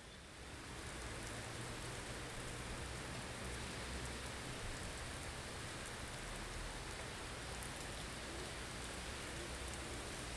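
Blizzard ambience: a steady hiss of wind with a low rumble beneath it, swelling louder in the first second.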